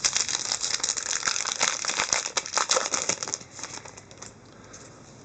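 Crinkling of a foil hockey card pack wrapper being handled, a dense crackle for about three and a half seconds that then dies down.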